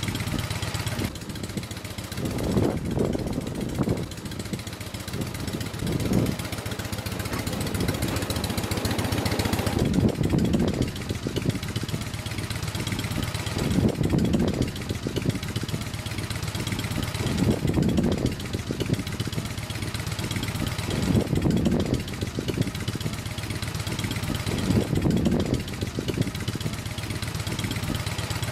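Wickham rail trolley's engine running steadily, with gusts of wind buffeting the microphone every few seconds.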